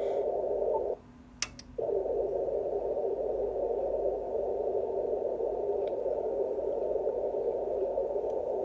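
Amateur radio receiver's speaker giving out a steady, narrow-band hiss: the strange wideband noise on 10 MHz. It drops out briefly about a second in, with a click, then comes back.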